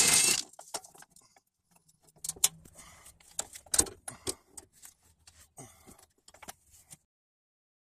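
A brief rustle, then scattered light metallic clicks and clinks of hand work under a vehicle beside a jack-supported fuel tank. The sound cuts off to silence about a second before the end.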